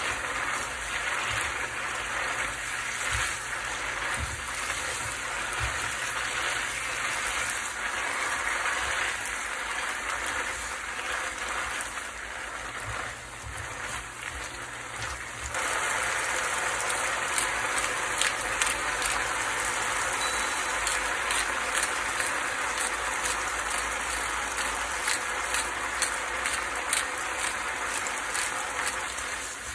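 Aglio olio spaghetti with chamnamul (Korean wild parsley) sizzling in oil in a frying pan as it is tossed with tongs: a steady sizzle that grows louder about halfway through, with many light clicks of the tongs against the pan in the second half.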